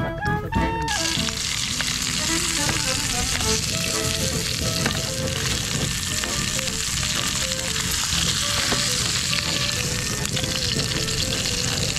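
Background music for about the first second, then sliced pork belly sizzling steadily in hot oil in a small camping frying pan, with a few light clicks of the tongs or spatula turning the slices.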